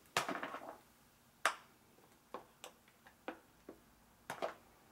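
Spoon clicking and tapping against a metal loaf pan and mixing bowl as thick, creamy dessert mixture is spooned into the pan. A short cluster of knocks comes right at the start, a sharper click follows about a second and a half in, and then about half a dozen light ticks spaced out.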